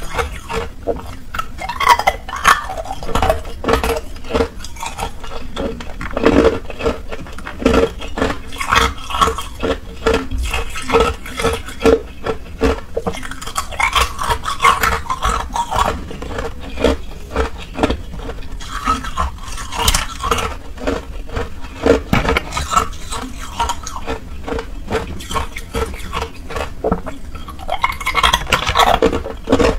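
Thin ice being bitten and chewed: a dense, continuous run of sharp, brittle cracks and crunches.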